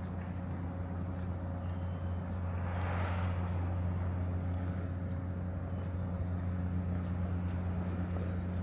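Vehicle running with a steady low drone, with a rush of passing noise swelling about three seconds in.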